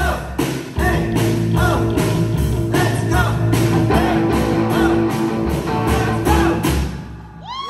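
Live rock band playing: electric guitars and a drum kit keeping a steady beat under a boy's sung vocal through the microphone. The song stops near the end.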